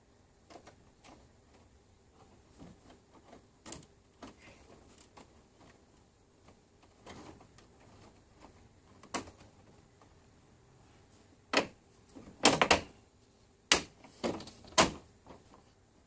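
Scattered light clicks and knocks of objects being handled, with a cluster of sharper, louder knocks in the last few seconds.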